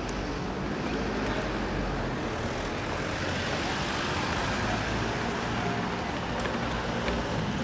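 Busy street traffic: a steady rumble of cars and buses passing on the road, with a brief louder double bump about two and a half seconds in.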